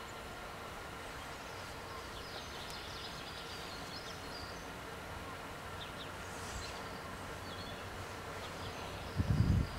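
Quiet outdoor ambience at a closed railway crossing, with a few faint bird chirps. A sudden low, gusting rumble starts near the end.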